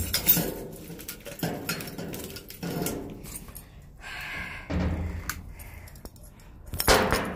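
Scattered knocks and thuds, the loudest a little before the end, with some rustling, as cardboard boxes and packing in a metal dumpster are handled and rummaged through.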